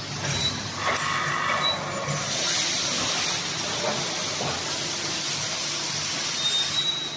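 Cutting disc making machine running, with a steady hiss that comes in about two seconds in and holds.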